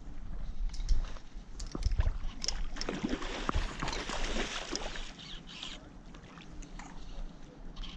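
Water splashing and sloshing as a hooked salmon thrashes near the bank, loudest a few seconds in, mixed with rustling and light knocks of handling close to the microphone.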